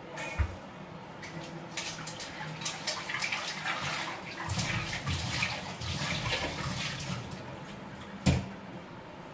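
Kitchen tap running into the sink while a dark pan is rinsed under it, with light clatter of the pan against the sink and one sharp knock about eight seconds in.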